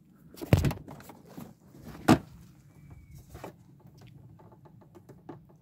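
Rex Milano scooter's plastic seat being shut: a heavy thump about half a second in, then a sharp click at about two seconds, followed by light scattered clicks and handling noise.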